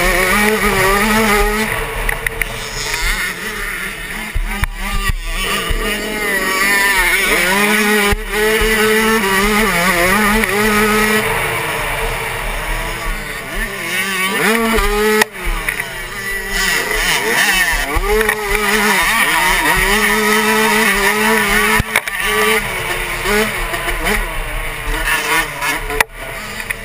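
Suzuki 85cc two-stroke motocross bike engine at race pace, heard from on board, its pitch climbing over and over as the throttle is opened and falling away for corners and gear changes.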